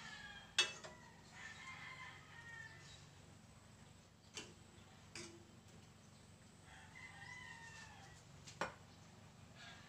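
A metal ladle clinking sharply against a steel wok a few times while stirring, the first clink the loudest. Behind it a bird gives two long drawn-out calls, one about a second in and one near the end.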